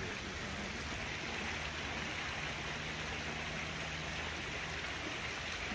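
A shallow creek running over rocks: a steady rush of water with no let-up.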